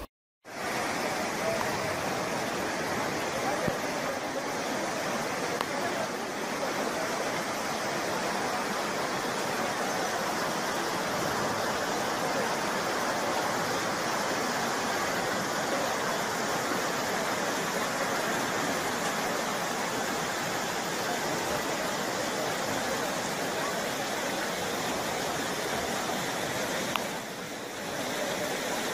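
Steady, even rushing of fast-flowing floodwater.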